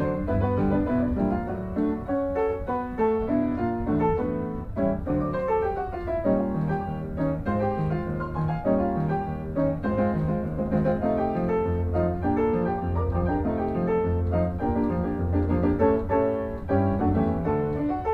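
Background music led by piano: a steady run of notes through the closing credits.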